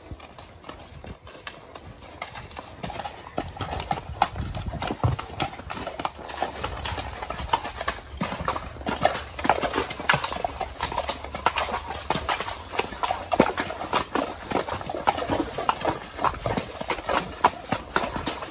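Horse hooves clopping at a walk on a rocky dirt trail, a dense irregular run of knocks that grows louder and busier from about three seconds in.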